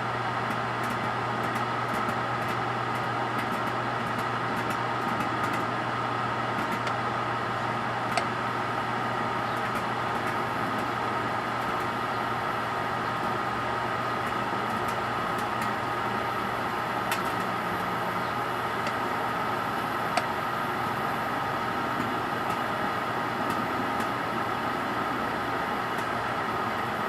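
Microwave oven running with a steady hum while heating a metal aerosol can of spray butter, with a few sharp clicks, about three, from inside.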